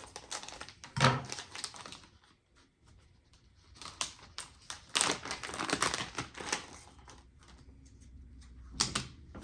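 A plastic bait package being cut open and crinkled, with irregular clicks and rustles of handling in short bursts, busiest about four to six seconds in.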